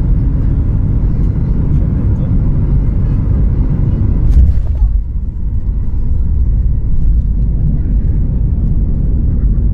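Cabin noise of a Boeing 737 MAX 8 decelerating on the runway after touchdown: a loud, steady rumble of its CFM LEAP-1B engines and the rolling airframe. About four and a half seconds in, a short clunk is followed by the engine noise easing off.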